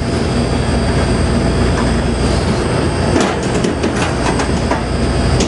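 Steady rumble and hiss of a commercial kitchen's ventilation fan. From about three seconds in come light knocks and taps as bell peppers are handled and set down on a plastic cutting board.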